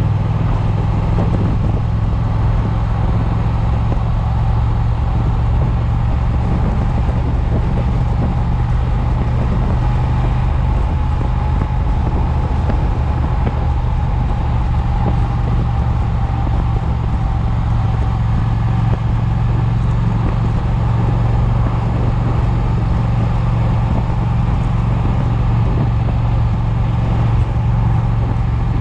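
Triumph motorcycle engine running at a steady cruise, a constant low hum, with wind noise buffeting the chest-mounted microphone.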